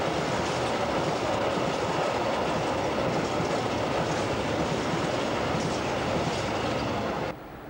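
Freight train of empty flat wagons rolling past close by: a steady rumble and rattle of steel wheels on the rails. It cuts off abruptly near the end.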